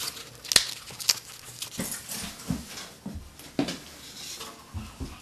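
Clinks and knocks of a toilet tank and its mounting bolt hardware being fitted onto the bowl. Two sharp clicks come about half a second apart near the start, then a run of softer knocks.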